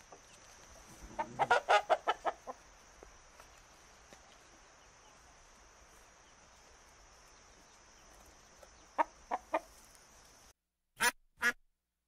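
Poultry calling: a quick run of about eight short calls, then three more some seconds later, over a steady faint high whine. After a sudden cut near the end come two short, sharper calls.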